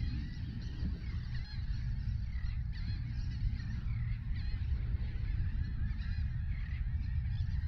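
A flock of birds calling continuously, many short overlapping calls, over a steady low rumble of wind on the microphone.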